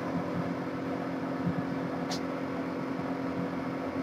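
Steady low mechanical hum of background room noise, with a single brief scratchy sound about halfway through.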